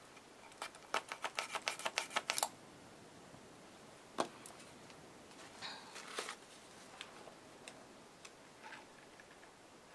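A paint container being shaken, rattling in about a dozen quick sharp clicks for two seconds, followed by a single sharp click and light handling of the paint supplies.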